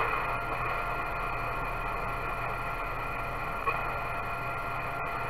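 CB radio receiver hissing with static between transmissions, with faint steady tones and a low hum underneath; a small click about three and a half seconds in.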